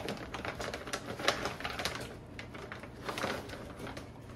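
Irregular clicking and light rustling of things being handled, a few small clicks a second with no steady rhythm.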